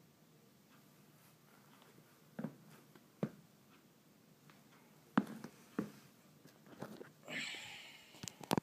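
Nike LeBron 9 Low basketball sneakers stepping and shifting on a wooden floor: a few soft, separate thumps. Near the end comes a short rustle and some sharp clicks as the camera is handled.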